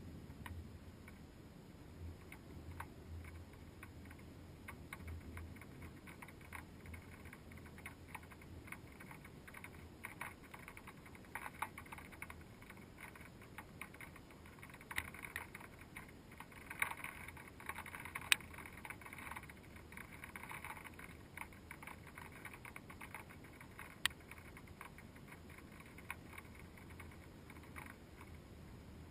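Raindrops ticking irregularly on a GoPro's waterproof housing, muffled by the case, with a busier stretch of taps about halfway through.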